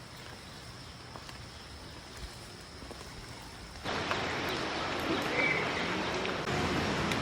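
Steady rain falling outdoors, an even hiss that suddenly becomes louder and denser about four seconds in, with a brief high chirp in the middle.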